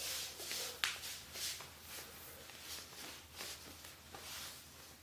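Soft rustling and shifting of a body and clothes during a back stretch, with one sharp click a little under a second in: the lower back cracking as the person leans back and pushes.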